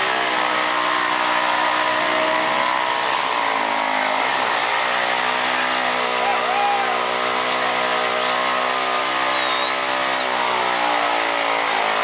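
Motorcycle engine held at high revs during a burnout, its rear tyre spinning on the pavement. The revs dip and climb back twice, about three seconds in and again near the end.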